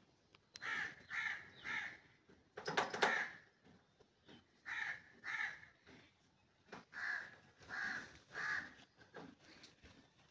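Crows cawing in short runs of two or three caws, about two a second, with a louder, rougher burst about three seconds in.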